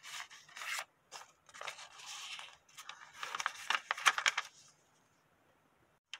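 A sheet of colored paper rustling and crinkling in several short bursts as it is handled, smoothed flat and folded in half by hand, then falling quiet near the end.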